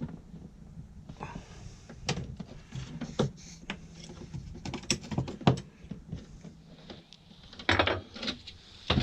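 Sharp, irregular clicks and knocks of pipe fittings and tools being handled while joints are made up on LPG gas pipe, with a quick cluster of knocks near the end.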